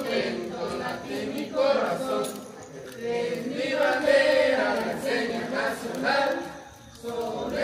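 A group of voices singing together in unison, with long held notes and short breaks between phrases.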